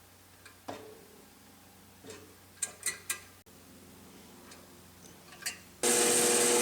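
Scattered light clicks and taps as the clamped shaft is lined up under the drill bit, then near the end a drill press starts abruptly and runs with a steady whine, drilling the roll pin hole in the shaft.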